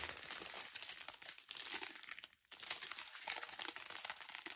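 Thin plastic bags of diamond painting drills crinkling as a strip of them is lifted and shuffled by hand, with a short pause about two and a half seconds in.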